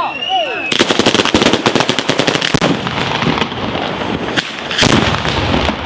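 Batteria alla bolognese, a ground-laid firecracker barrage, going off. About a second in it starts as a fast string of sharp bangs, then runs on as a dense crackle, with heavier bangs near the end.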